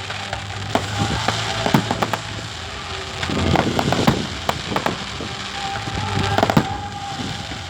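Fireworks and firecrackers going off: scattered sharp bangs and cracks, with a denser run of crackling about three to four seconds in.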